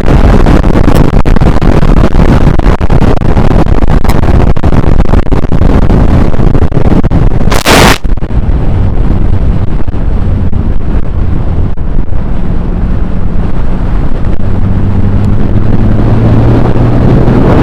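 Loud wind noise in a moving Nissan Z, a heavy rumbling rush of air with a brief sharp hiss about eight seconds in. A steady low engine note comes through in the last few seconds.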